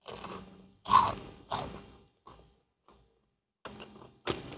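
Biting into and chewing a crisp churro: several short crunches about a second apart, the loudest about a second in. A paper sack starts to rustle right at the end.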